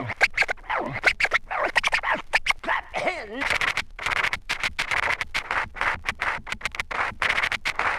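Turntable scratching on a hip-hop record: rapid back-and-forth scratch cuts with short rising and falling pitch sweeps, played back from the vinyl between the rapped verses.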